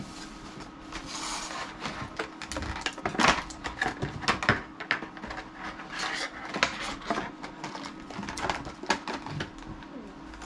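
Plastic toy packaging being handled and opened, with irregular crinkling and clicking crackles.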